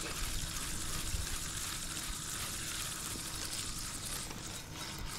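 A spinning reel on a carp rod being wound in against a hooked fish, heard as a quiet steady mechanical sound under even hiss.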